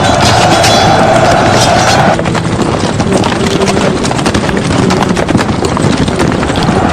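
Battle sound effects: a dense clatter of many horses' hooves, packed with rapid knocks and clicks. A steady layer of sound behind it cuts off suddenly about two seconds in.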